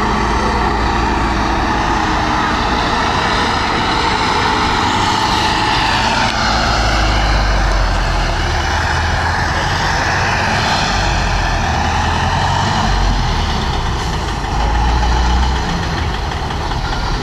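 Engine of a SKOT eight-wheeled armoured carrier converted to a fire engine, a Tatra V8 diesel, running under load as it drives over a rough dirt track. The engine note rises and falls, gets heavier about six seconds in, and surges once more near the end.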